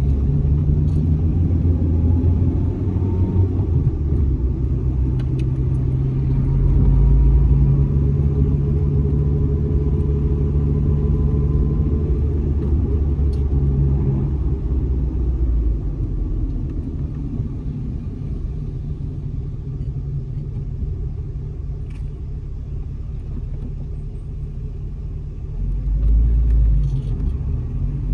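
Car driving: a steady low rumble of engine and tyres on the road. It eases off somewhat past the middle and swells again near the end.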